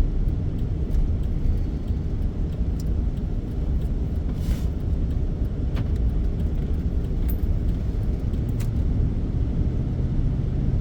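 Road noise heard from inside a moving van: a steady low rumble of engine and tyres, with a few faint clicks and a brief hiss about four and a half seconds in.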